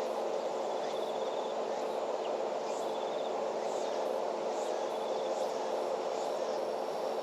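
Insects chirping outdoors in short, fast trills that come about every two seconds, over a steady low background hum.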